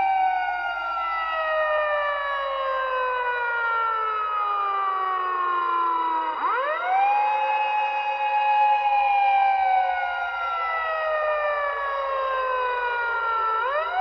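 A siren wailing in long cycles: it falls slowly for several seconds, then sweeps quickly back up about six seconds in and again near the end, holding high briefly before falling again. Several pitches glide together.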